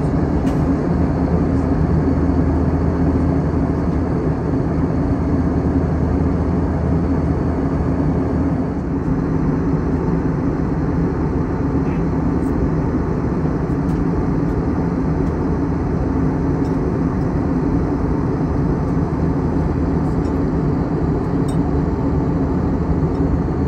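Steady airliner cabin noise in cruise inside an Airbus A321: a constant rush of engine and airflow noise with a low hum, whose deepest part eases a little about nine seconds in.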